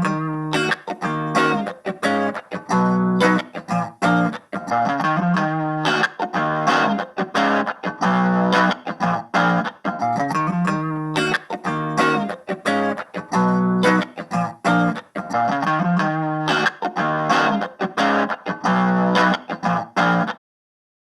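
Electric guitar played through a mini guitar amplifier: a choppy riff of chords and single notes with short stops between phrases, cutting off about a second before the end.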